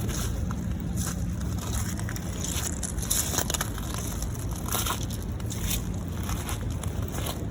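Footsteps crunching irregularly on rough ground over the steady rush of river waves.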